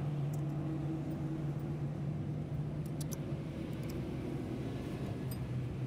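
An engine running steadily, a continuous low hum, with a few faint light clicks about three seconds in and again near the end.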